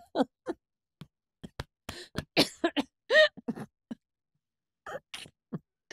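Women laughing into their microphones in short, broken bursts with silent gaps between them.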